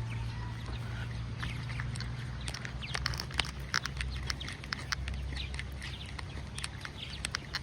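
Footsteps on a path while walking, with birds chirping around, over a steady low rumble.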